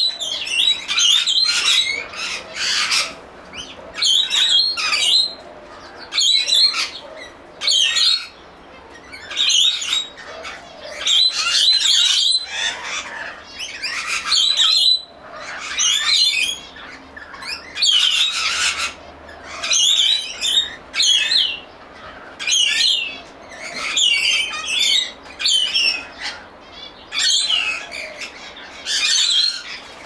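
Small songbirds singing in short, high, chattering phrases that repeat every second or two.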